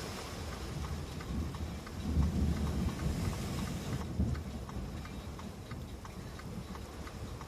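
Heavy typhoon rain falling, with scattered raindrop ticks over a steady hiss, and a low rumble that swells about two seconds in and fades after a couple of seconds.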